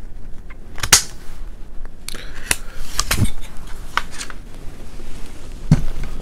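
Sharp metallic clicks and clacks from the parts of a Colt AR6951 9mm carbine as it is handled and the upper and lower receivers are separated, about five or six in all, the loudest about a second in.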